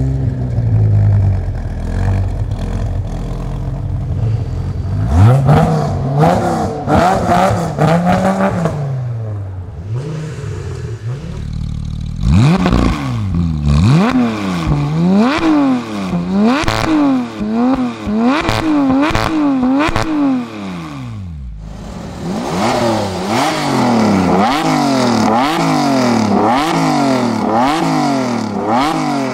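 A Dodge Viper GTS's 8.0-litre V10 idles, then is revved a few times. From about twelve seconds in, a Porsche 991 GT3's flat-six with an iPE Innotech exhaust is blipped rapidly, about once a second. Near the end a Lamborghini Diablo VT Roadster's V12 is revved in quick blips.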